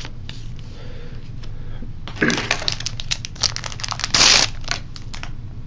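Foil trading-card booster pack being crinkled and torn open by hand, with light clicks of card handling; the loudest crinkling tear comes about four seconds in.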